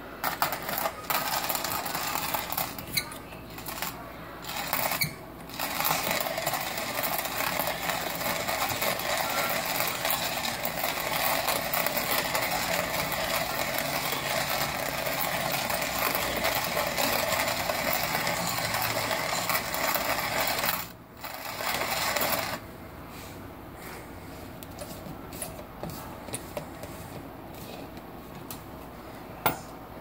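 Hand-cranked coffee grinder crushing coffee beans: a steady crunching rattle as the handle turns, broken by a few short pauses in the first five seconds. The grinding stops about two-thirds of the way through, and only scattered light clicks and knocks follow, one sharper click near the end.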